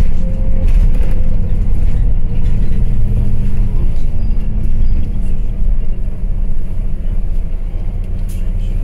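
City bus engine and drivetrain running as the bus slows, with a whine falling in pitch over the first few seconds. The engine noise eases off near the end.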